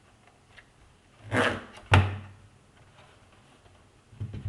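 Plastic spudger working at the seam of a plastic computer case: a short scrape, then a single sharp plastic clack about two seconds in, with a few light knocks near the end.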